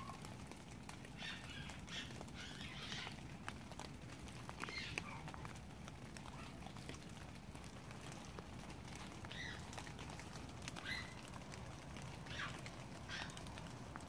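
Short, high squeals from an unseen animal: several in quick succession in the first few seconds, a pause, then a few more spaced about a second and a half apart. Rain patters and drips throughout.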